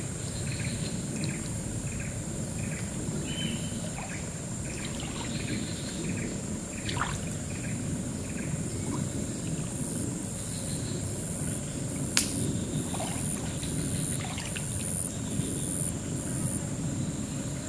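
Water sloshing and splashing softly around a person's legs as he wades slowly into a swampy forest river. Insects buzz steadily in the background. A run of short chirps, about three a second, sounds in the first six seconds, and there is a single sharp click about twelve seconds in.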